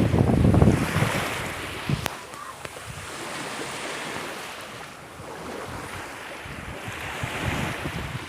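Wind buffeting the microphone for the first second or so, then a steady wash of sea waves that swells and falls, with a small click about two seconds in.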